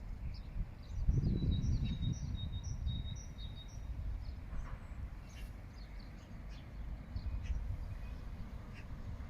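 Small birds chirping and singing, with a quick run of high notes about a second in and then scattered short chirps, over a steady low rumble.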